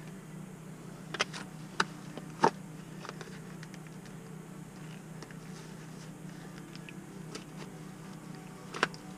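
A few sharp clicks and knocks, the loudest about two and a half seconds in and another near the end, as a sleeve is pulled up over a prosthetic leg and the leg is handled, over a steady low hum.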